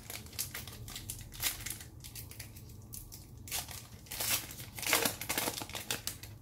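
Foil wrapper of a Panini basketball trading card pack being torn open and crinkled by hand, in irregular crackles, with the loudest tearing about four to five seconds in.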